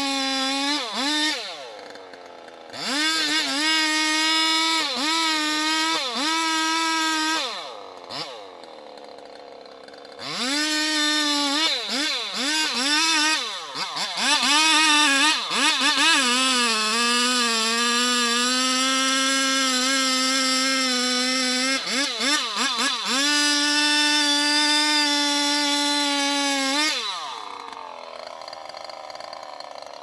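Large two-stroke chainsaw with a long bar cutting into the trunk of a huge conifer. It revs high, dips and picks up again about once a second, sags in pitch under load during a long steady cut in the middle, and drops back to idle twice early on and again near the end.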